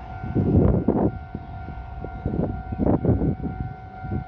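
Wind buffeting the microphone in repeated irregular gusts, over a steady two-pitched electronic tone that holds throughout.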